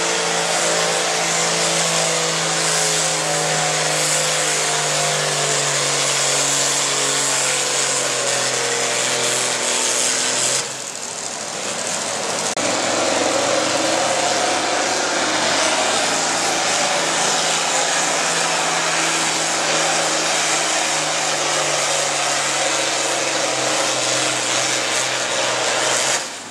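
Diesel farm tractor engine running hard under load as it pulls a weight sled, its pitch slowly sinking as it lugs down; it drops off suddenly about ten and a half seconds in. A couple of seconds later a John Deere farm tractor's diesel comes up loud and runs hard under load for the rest.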